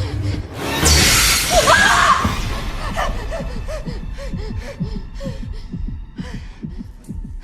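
Horror-film sound design: a sudden loud crash-like burst about a second in, with a shrill gliding cry over it, followed by a fast run of short low pulses, about four a second.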